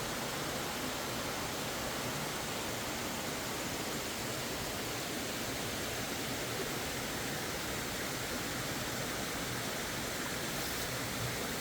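A small waterfall on a creek, water pouring and splashing in a steady rush.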